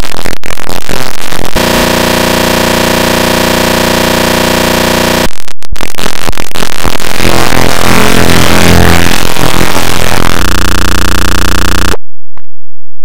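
Very loud, clipped electronic noise. Sustained droning tones and harsh noise switch abruptly from one block to the next, then cut off to near silence about twelve seconds in.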